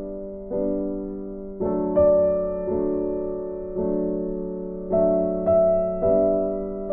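Soft background piano music: chords struck about once a second, each fading before the next.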